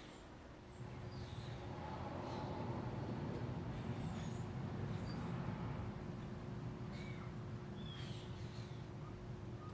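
Small birds chirping in short separate calls, over a low steady hum. A low rumble swells about a second in and eases off after the middle.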